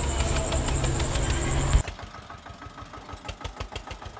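Eicher tractor's diesel engine running with a regular knock, loud at first, then dropping abruptly to a much fainter level a little under two seconds in.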